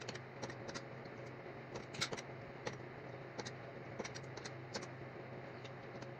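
Typing on a computer keyboard: irregular key clicks, some in quick runs and a few louder strokes, over a steady low hum.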